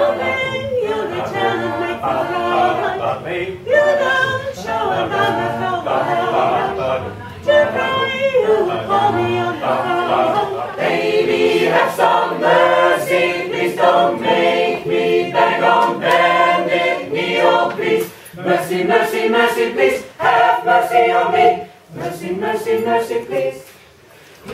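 Mixed choir of women's and men's voices singing a cappella in several-part harmony, with short breaks between phrases and a drop in loudness just before the end.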